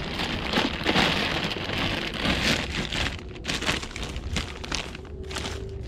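Clear plastic bag crinkling and rustling as a new driveshaft is handled and unwrapped inside it: a dense crinkle for the first few seconds, then scattered separate crackles.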